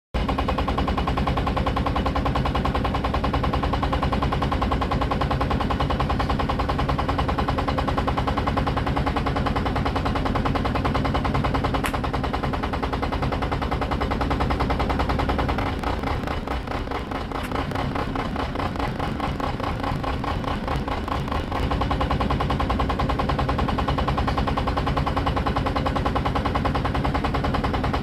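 Small road roller's diesel engine running, a steady rapid clatter over a low hum. It goes slightly quieter for several seconds midway.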